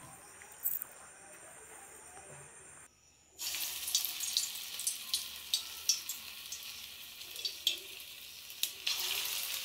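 Cabbage pakora batter frying in hot oil in a kadai, a dense sizzle full of sharp crackles and pops. It is quiet for the first three seconds, then the sizzle starts suddenly after a brief gap and keeps going.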